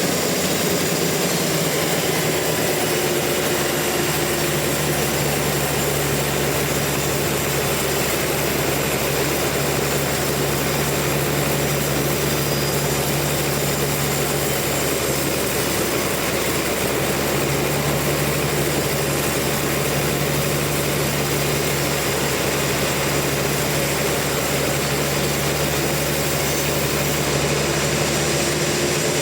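Sawmill machinery running steadily, a constant mechanical hum over a dense noise, with the hum dipping briefly about halfway through.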